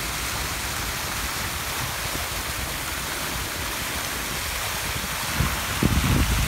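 Fountain water spilling over a stone wall and splashing into its pool: a steady rushing hiss. Near the end a louder low rumble comes in underneath.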